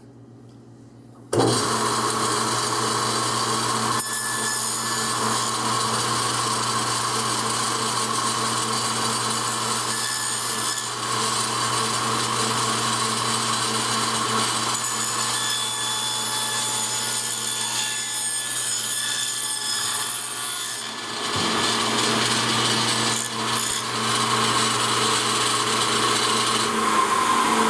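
Table saw fitted with a dado blade stack cutting through a wooden panel pushed on a panel-cutting sled. The sound starts suddenly about a second in: a steady motor hum under the noise of the blade chewing through the wood, dipping briefly about three quarters of the way through.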